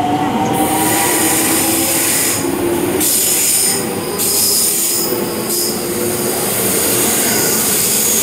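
JR West 223 series Special Rapid electric train pulling out of the platform. The traction motor whine climbs in pitch as it gathers speed, over a steady high wheel squeal and rumble from the passing cars.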